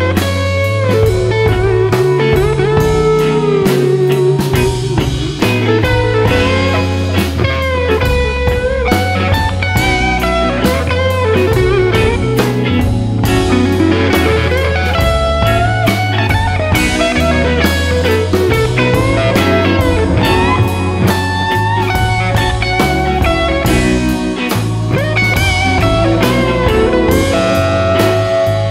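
Background rock music with no singing in this stretch: a guitar playing bending lines over a bass line and a drum kit.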